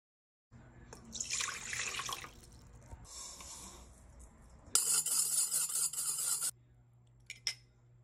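Water poured and splashing into a stainless steel mixing bowl in a few separate pours, the loudest in the middle. Two light clicks come near the end.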